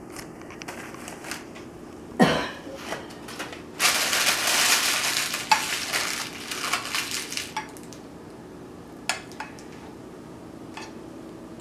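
A spoon knocks and scrapes against a casserole dish, with one sharp knock about two seconds in. A plastic bag of crushed Ritz crackers crinkles and crunches as it is handled, loudest from about four to seven and a half seconds in.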